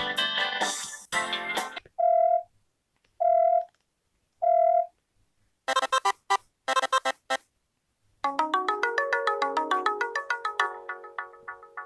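UMX cell phone ringtones played one after another. The end of a musical tone gives way to three evenly spaced beeps, then a few quick bursts of trilling rings, then a fast electronic melody of rapid notes.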